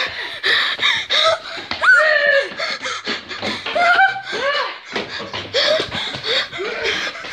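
Children laughing and panting breathlessly, with short high cries whose pitch slides up and down.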